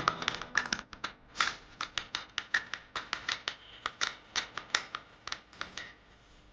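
A quick, irregular series of sharp taps and clicks, several a second, stopping about half a second before the end.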